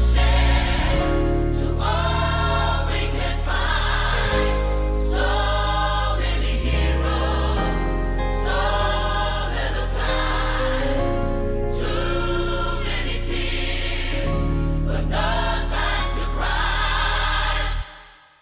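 A choir singing a gospel song with bass-heavy accompaniment, in phrases that change every second or two; the music cuts off sharply near the end.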